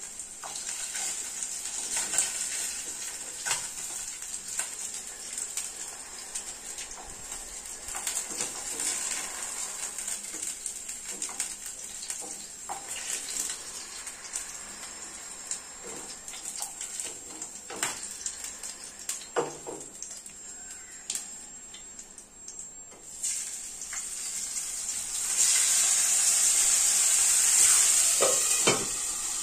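Pabda fish frying in hot oil in a pan: a steady sizzle broken by scattered clicks and taps of the spatula and lid against the pan. The sizzle grows louder for a few seconds near the end.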